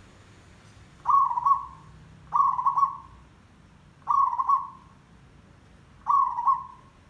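Zebra dove (merbok) cooing: four short coos, each in two quick pulses, spaced about one and a half to two seconds apart.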